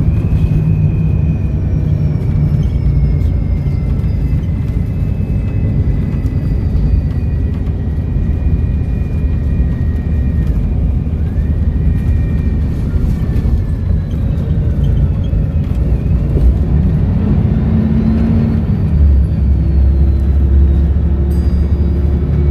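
Volvo B7RLE bus's seven-litre six-cylinder diesel engine running, a heavy low rumble with a thin high turbocharger whistle that slowly falls in pitch. About 19 seconds in, the engine's low note changes and grows louder.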